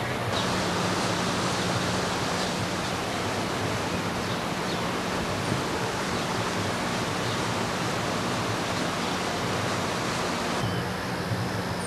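A steady, even rushing noise that sets in abruptly just after the start and cuts off abruptly near the end, over a faint low hum.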